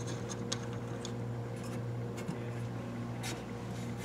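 A few faint clicks and light rubbing as a hand handles the metal magnet assemblies of loudspeaker drivers mounted in a wooden cabinet, over a steady low hum.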